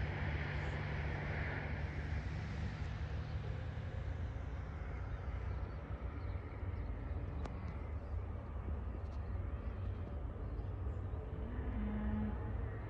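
Steady low engine rumble, with a road vehicle passing and fading away over the first few seconds.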